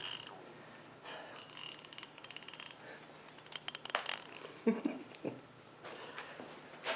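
Faint handling of hand tools, with short runs of rapid, even clicks, like a ratchet being turned back and forth, and a few soft breaths and knocks.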